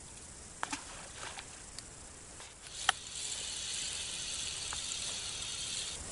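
Spinning reel being cranked, its steady high whirr running for about three seconds as line is wound in with a small fish on, after a few sharp clicks from handling the rod and reel.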